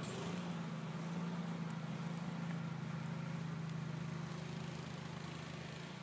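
An engine running steadily, a low even drone that eases slightly near the end.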